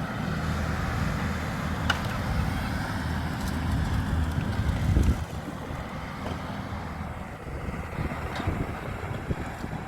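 An engine running steadily, with wind on the microphone; the engine sound drops away sharply about five seconds in.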